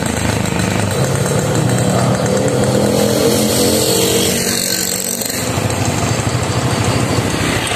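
Motorcycle engine running while riding, a steady, dense pulsing that eases slightly about five seconds in and then picks up again.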